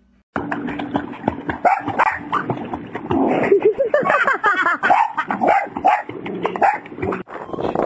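A dog barking and yipping repeatedly in a pool, with water splashing around it.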